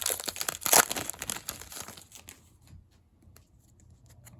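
Foil wrapper of an Upper Deck hockey card pack crinkling and tearing as it is ripped open, loudest in the first two seconds, then a few faint ticks.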